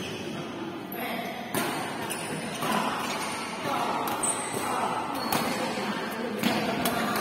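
Badminton rally: rackets strike the shuttlecock several times in sharp smacks, with shoes squeaking on the court floor.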